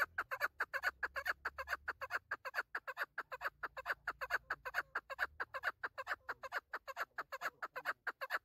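Chukar partridge (chakor) calling: a rapid, unbroken run of short chuck notes, about six a second.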